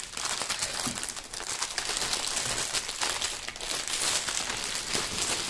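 A clear plastic sleeve and the bags of diamond-painting drills inside it crinkling steadily as they are handled and pulled apart.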